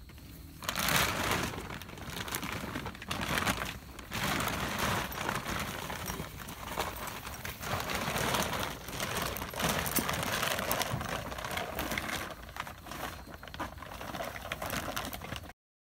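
Plastic cover of a FlowerHouse pop-up greenhouse crinkling and rustling in uneven surges as it is handled during setup; the sound cuts off suddenly near the end.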